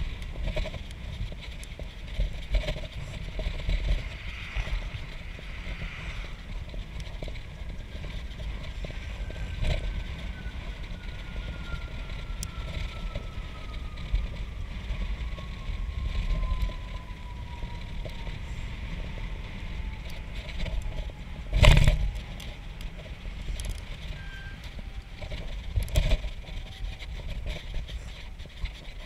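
Bicycle ride heard from a handlebar-mounted camera, played back at 150% speed: steady wind buffeting on the microphone and rumble from the ride, with a faint thin whine that slowly falls in pitch from about a quarter of the way in. A loud knock about three quarters of the way through and a smaller one a few seconds later as the bike jolts over bumps.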